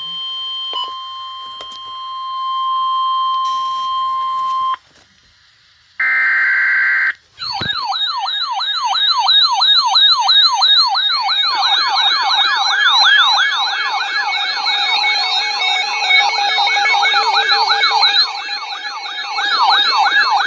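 Emergency broadcast alert tones: a steady high tone for several seconds, a short buzzing data burst, then a loud electronic siren-like attention signal sweeping rapidly up and down, about three times a second, heralding a severe thunderstorm warning.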